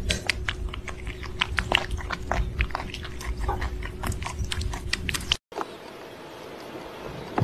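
A cat crunching dry kibble from a bowl: rapid, irregular crunches for about five seconds over a steady hum. The sound then cuts off abruptly to a quieter, even hiss.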